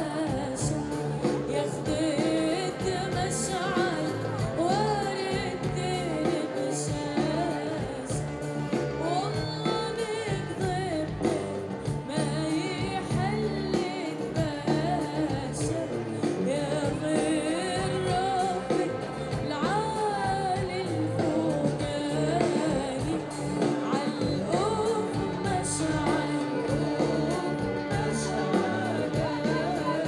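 A woman singing an Arabic song live into a microphone, accompanied by a band, her melody rising and falling in ornamented, wavering phrases.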